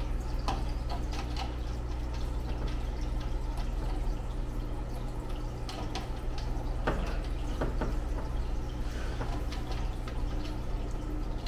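Faint scattered clicks and taps of a speaker wire being fitted and a screw-type binding post tightened on the back of an AV receiver, over a steady low hum.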